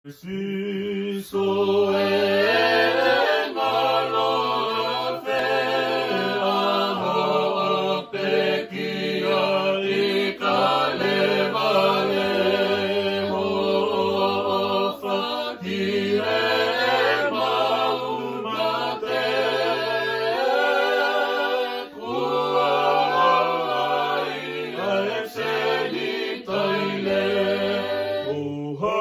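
Choir singing a Tongan hymn to Jesus in parts, sustained chords with held low bass notes, unaccompanied.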